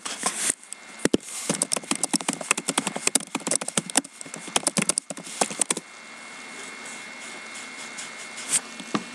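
Rapid, irregular clicking and crackling for about six seconds, then a steady hiss with a faint high tone and two single clicks near the end.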